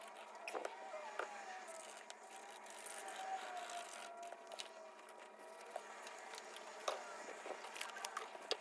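Faint scraping and rubbing with scattered light clicks and taps: hand cleaning of a laptop with a small brush and wipes.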